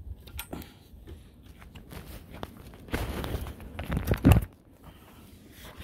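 A metal gate latch clicks a couple of times, then footsteps on wooden deck boards, with heavier low thumps and rustling about three to four seconds in.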